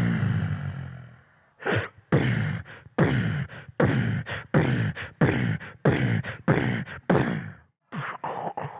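Beatboxing into a microphone: a deep booming hit that fades over about a second, then, after a short pause, a steady driving beat of vocal kick and snare sounds, the deep hits sliding down in pitch. The beat stops near the end.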